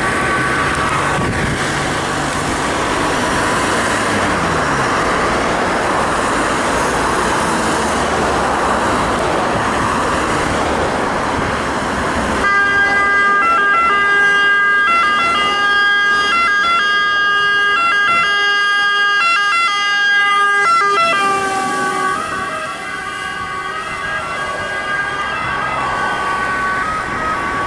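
Italian fire engines responding with two-tone sirens over truck engine and road noise. About halfway through, the sound switches abruptly to a loud, clear siren whose two notes alternate. Near the end it is quieter and its pitch bends slightly as the truck goes by.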